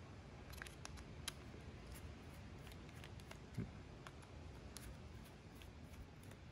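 Faint, scattered clicks and light scraping of a small screwdriver turning out the case screws of a Traxxas 2085 servo.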